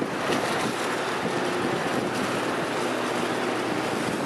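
Harbour ferry's engine running as the boat comes in to dock, under a steady rush of water and wind.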